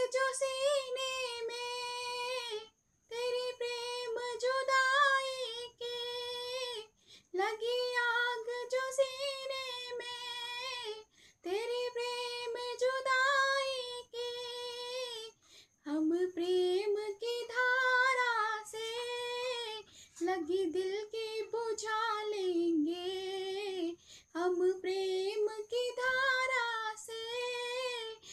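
A woman singing a Hindi devotional bhajan solo, in long held, gently wavering phrases broken by short pauses for breath.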